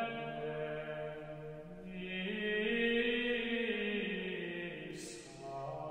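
Slow sung chant: long held notes that step up in pitch and then back down again.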